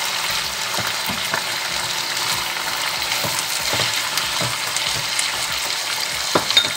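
Chicken pieces, onions and red pepper strips sizzling in oil in a cast-iron casserole, with a wooden spoon scraping and tapping in the pot as the peppers are spread out; two sharper knocks near the end.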